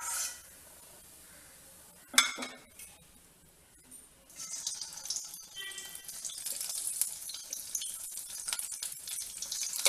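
Metal clinking against a stainless steel kadai, with a sharp ringing clink about two seconds in. From about four seconds in, hot oil sizzles steadily as raw banana-flower kofta balls are dropped in to deep-fry.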